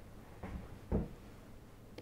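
Two soft, short thuds about half a second apart, the second one louder and deeper, over faint room tone.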